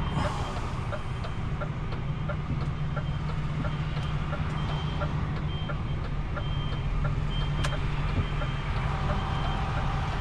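A truck's reversing alarm beeping repeatedly over the steady hum of its engine as the truck backs up.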